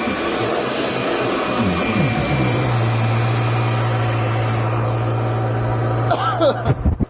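2011 Kirby G10 Sentria upright vacuum cleaner running, its motor drone wavering in pitch over the first couple of seconds and then holding steady. Near the end its pitch falls away sharply and the sound drops off.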